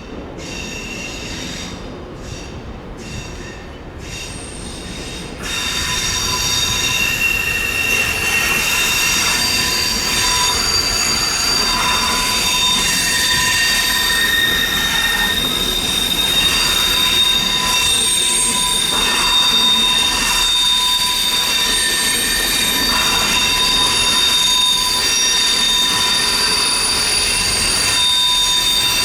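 Train wheel flanges squealing against the rails on a tight curve. The squeal comes in short bursts at first, then about five seconds in it becomes a loud, continuous squeal of several steady high tones over the low rumble of the train rolling by.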